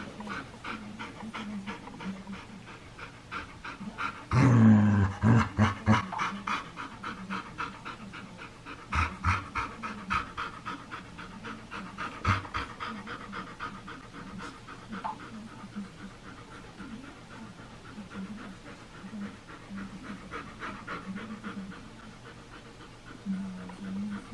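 Dog panting in quick, even breaths close to the microphone, with a louder, low-pitched sound lasting over a second about four seconds in.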